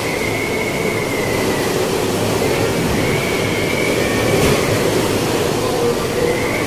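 Typhoon-strength wind blowing against and through a building, heard from inside: a loud, steady rush with a high whistle that wavers in pitch and fades out and back in twice.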